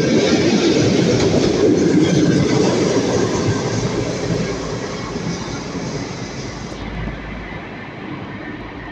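EP2DM electric multiple unit running on the rails, wheels clattering, the sound fading steadily as the train moves away.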